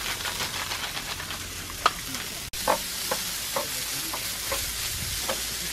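Sesame-oil chicken fried rice sizzling in a hinged double-sided frying pan. A wooden spatula scrapes and taps the pan as the rice is stirred, about every half second.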